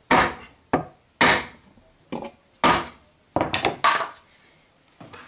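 Hammer blows driven through a wooden stick onto the stamped-steel flange of an automatic transmission oil pan resting on a stump, to straighten a bent section of the flange: about eight sharp knocks at uneven intervals, one of them lighter.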